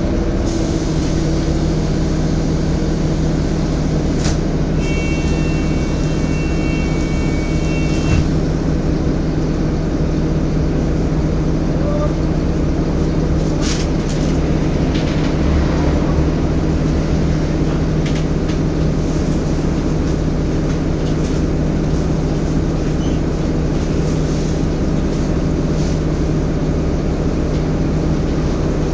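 Cabin sound of a Wright StreetCar articulated bus (Volvo B7LA) underway: the engine and cooling fan running as a steady low drone. A high-pitched squeal comes in about five seconds in and lasts about three seconds, and there are a few sharp knocks and rattles from the bus body.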